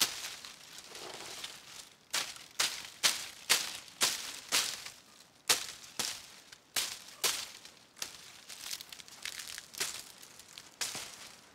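A blade cutting and stripping dry palm fronds: crisp tearing, rasping strokes about two a second, with a short pause about a second in.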